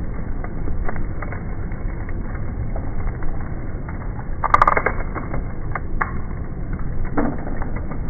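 Ford F-150 pickup creeping forward with its engine rumbling low and steady as a tyre rolls slowly over polymer Glock magazines on concrete. About four and a half seconds in comes a short, crunchy crackle as the tyre presses down on the loaded magazine, followed by a few sharp clicks.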